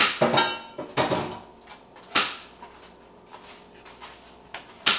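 Kitchen clatter: a handful of sharp knocks of containers and dishes being handled and set down, some with a short ring. They come thickest in the first couple of seconds, with one more near the end.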